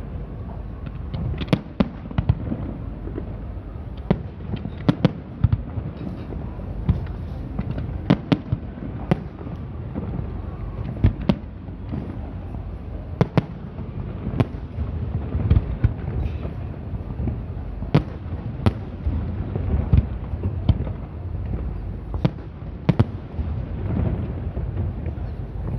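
Fireworks display: aerial shells bursting in sharp, irregular bangs, often a second or less apart, over a steady low rumble.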